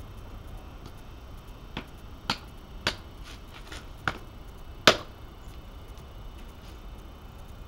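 Small axe striking a chopping block while splitting a thumb-thick stick of fresh wood lengthwise: a handful of sharp wooden knocks at irregular intervals, the loudest about five seconds in.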